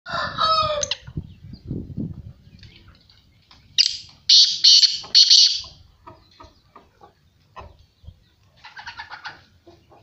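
Male black francolin calling: a loud, harsh call of about four grating notes about four seconds in, with shorter bird calls at the start and a quick rattling series near the end.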